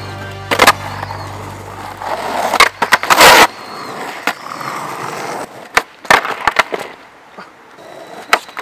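Skateboard on an asphalt road: wheels rolling steadily, then sharp clacks and slaps of the board popping and landing, the loudest about three seconds in, with more scattered clacks after that.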